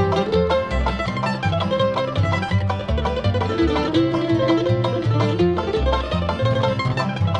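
Bluegrass instrumental by a string band: fast picked banjo over guitar, mandolin and a walking bass line, with no vocals.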